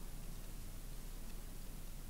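Quiet, steady room tone with a constant low hum; no distinct sounds.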